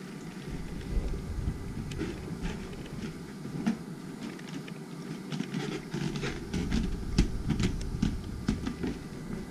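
Handling and movement noise from a GoPro Hero 5 held on a Karma Grip gimbal as it is carried and moved: a low, uneven rumble with scattered clicks and taps that grow more frequent over the second half.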